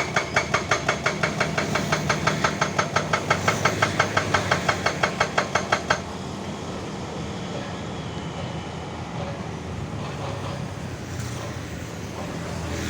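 Hydraulic rock breaker on an excavator hammering rapidly at about five or six blows a second, with a ringing metallic clank to each blow. It stops abruptly about six seconds in, leaving the excavator's diesel engine running steadily.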